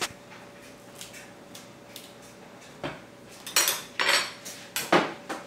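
Steel chef's knife knocking and scraping as an avocado pit stuck on its blade is worked off: one knock about three seconds in, then a quick run of sharp clacks and scrapes.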